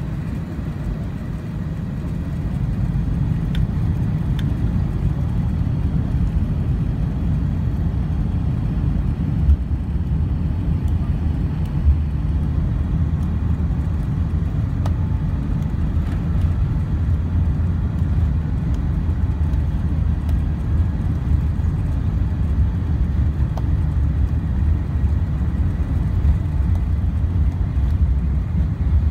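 Cabin noise inside an Airbus A380 moving on the ground: a steady low rumble of its Rolls-Royce Trent 900 engines and the rolling airframe. It grows louder about two seconds in, with a couple of small knocks near the middle.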